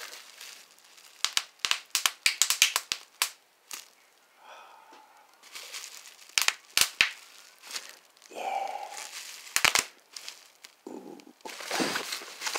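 Bubble wrap being popped between the fingers: a quick run of sharp pops in the first few seconds, then scattered pops in small clusters, with the plastic crinkling in between.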